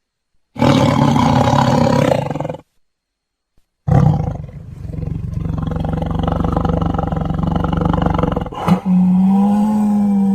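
Big-cat roaring in three parts: a rough roar of about two seconds, a short silence, then a longer roar of about four seconds. Near the end comes a steadier, held call with a clearer pitch.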